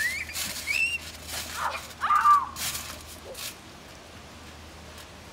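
A child's short high-pitched squeals, one rising and one arching up and down, over scuffling on a trampoline mat as two children wrestle. After about three and a half seconds it settles to a steady faint hiss.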